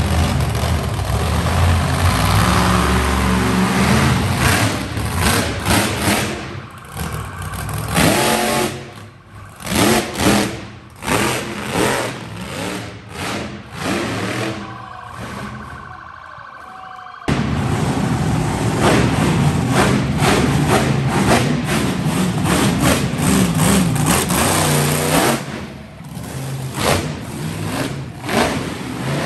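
Monster truck engines revving hard in many short throttle bursts. Partway through the noise drops off for a few seconds, leaving a faint steady high tone, and then loud engine revving starts again abruptly.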